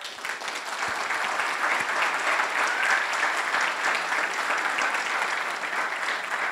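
Audience applauding: many hands clapping in a dense, steady patter that starts at once and keeps going.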